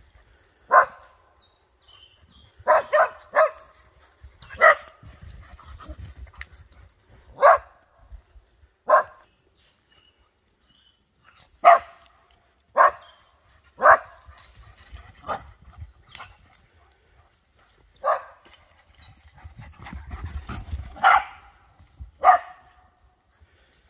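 Dog barking in rough play between a whippet and a German shepherd: short single barks at irregular intervals, a dozen or so in all, with a quick run of three a few seconds in.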